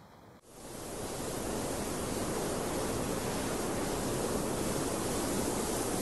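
Steady rushing noise that fades in about half a second in and then holds level.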